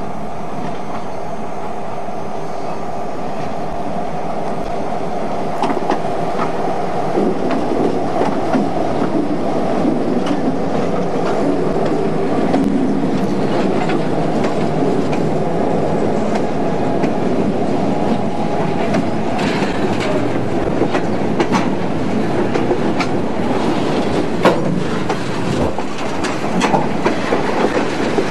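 Freight train with diesel locomotives passing close by: a steady engine drone that grows into a louder rumble as the locomotives go past. After that come rail cars with wheels clicking and clacking over the rail joints, in sharp irregular clicks.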